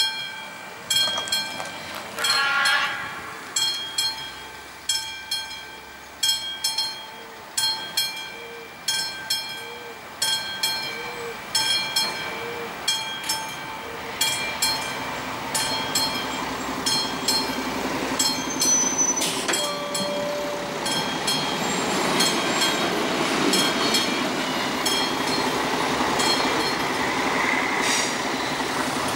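Level-crossing warning bell striking about once a second, with a train passing over the crossing from about halfway through, its rumble growing louder.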